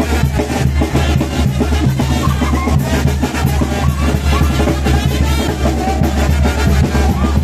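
Band music for a calenda procession, continuous and loud: bass drum and snare drum beating steadily under a sustained low bass line and a wavering melody.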